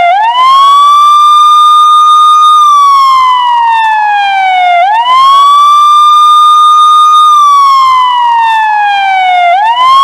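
Loud police siren wailing: the pitch swoops up quickly, holds high for about two seconds, then slides slowly down, the cycle repeating about every five seconds.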